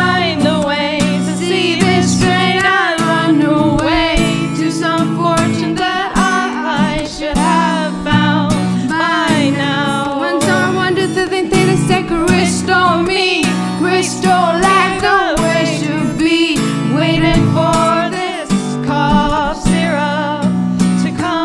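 A song sung over acoustic guitar accompaniment, the voice carrying the melody above sustained guitar chords.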